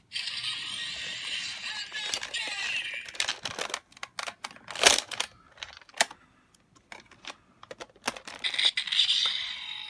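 Electronic sound effects from a homemade Kamen Rider Revice stamp toy's small speaker, with a run of sharp plastic clicks from its buttons and stamp mechanism in the middle.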